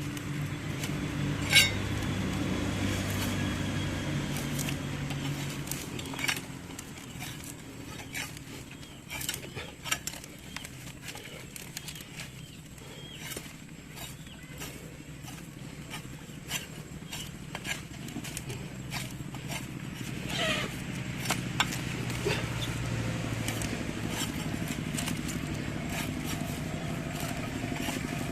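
A motor running steadily with a low hum, with scattered knocks and clinks over it.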